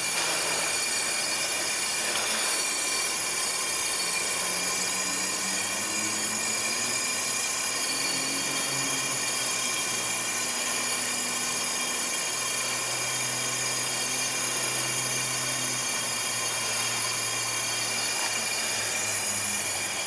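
Homemade propane burner running under a stockpot of water, its gas jet giving a steady high-pitched hiss.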